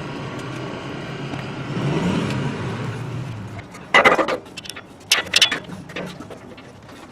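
A passing vehicle's hum swells and fades over the first few seconds. After it come a few sharp metal clinks and clanks of tools and parts being handled.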